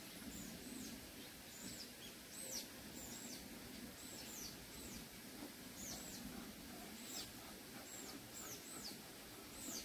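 Small birds chirping over and over, short high calls that slide downward, about two to three a second, over a faint steady low background noise.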